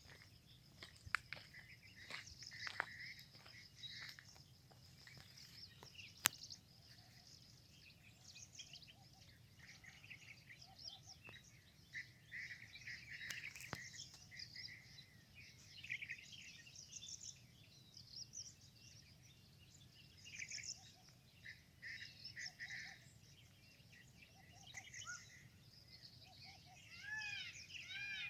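Several small birds chirping and calling in overlapping short phrases, faint, with a few sharp clicks in the first seven seconds.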